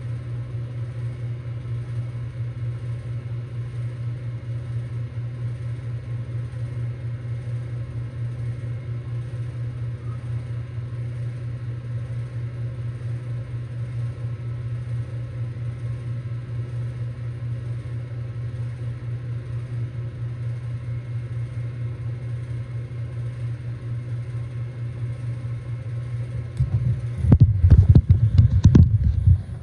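Ruud Achiever heat pump's scroll compressor running steadily in heating mode shortly after start-up, a low throbbing hum with a light rattle that is fading. About three seconds before the end a louder, rough low rumble comes in.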